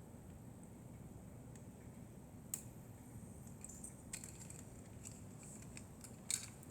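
Faint, scattered clicks and taps of small plastic pieces being handled, starting about two and a half seconds in and gathering near the end, over a low steady room hum.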